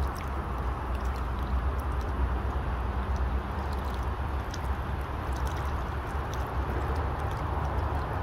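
River water flowing past in a steady rush, with a strong low rumble underneath and scattered faint ticks of small splashes.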